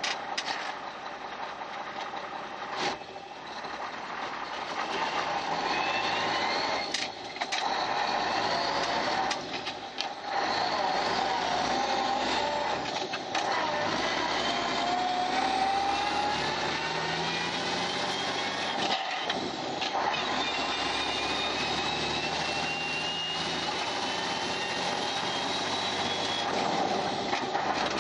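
1993 Mack RD dump truck's 300 Econodyne diesel pulling with half a load of asphalt, heard inside the cab while it accelerates up through its 8-speed Eaton manual gearbox. The engine note rises in each gear and drops away briefly at each of several shifts. The longest pull comes past the middle.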